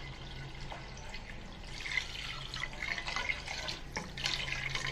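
Water poured from a plastic bottle into a pressure-cooker pot of chana dal and mutton masala, splashing into the liquid. The pour grows louder about two seconds in.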